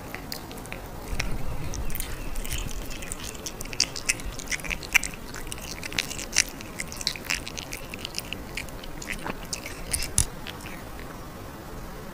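Cat biting and chewing a piece of salmon taken off a fork: a run of short, irregular chewing clicks, thickest through the middle and tailing off near the end.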